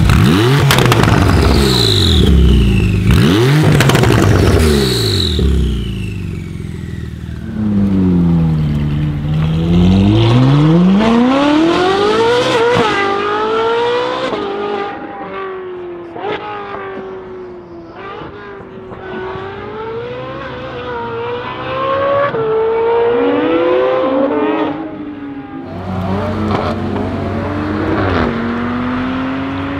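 Several high-performance car engines, one after another: sharp revving in the first few seconds, then an engine accelerating hard through a string of gears, its pitch rising and dropping again at each upshift, and near the end a new engine running at a steady note.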